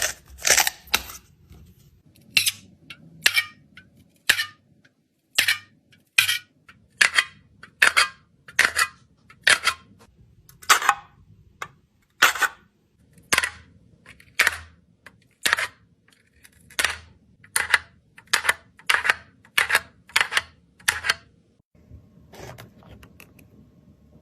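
A run of sharp snaps or cracks, about one a second, that stop a few seconds before the end.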